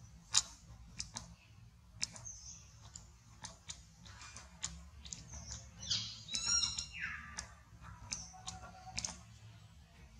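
Scattered crackles and sharp clicks, as of dry leaf litter being moved, over a low steady rumble. About six seconds in, a high chirping call slides downward over about a second.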